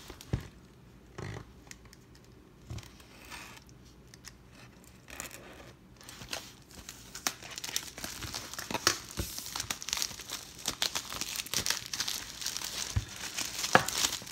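Cellophane shrink wrap being torn and peeled off a cardboard box of trading cards. A few light taps and rustles come first, then from about six seconds in the plastic crinkles continuously, with an occasional knock against the box.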